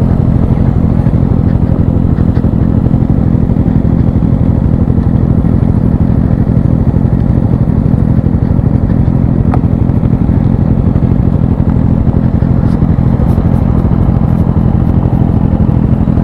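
Motorcycle engine running steadily at low, unchanging revs, heard from the rider's seat.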